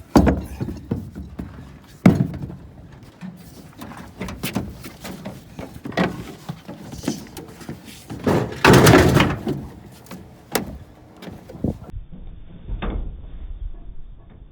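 A series of knocks and thumps of hard objects being handled: a sharp bang right at the start, another about two seconds in, and a longer, louder clatter around nine seconds in, with smaller knocks between.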